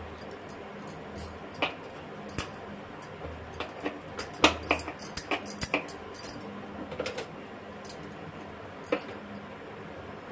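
Dough being rolled and pressed into a log on a wooden cutting board by hand, heard as scattered light taps and knocks, busiest about halfway through, over a faint steady hum.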